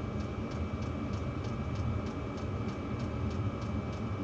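Steady drone of diesel heaters running inside a closed ice-fishing shack, with a low hum, a thin high steady tone and faint ticking about four times a second.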